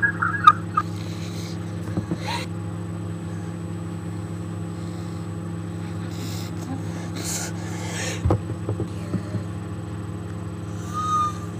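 A steady low hum, with scattered faint clicks and brief rustling noises over it.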